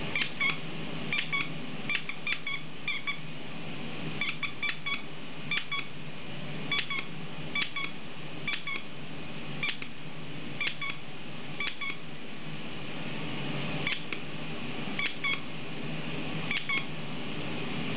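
Plush cow squeaky toy squeaked over and over as a dog bites and chews it: short, high squeaks about once a second, often in quick pairs, with a pause of about two seconds near the two-thirds mark.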